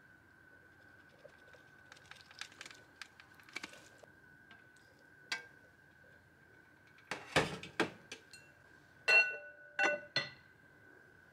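Kitchenware being handled: scattered light taps and clicks, then two loud knocks a little past the middle and three clinks that ring briefly near the end, over a faint steady high-pitched hum.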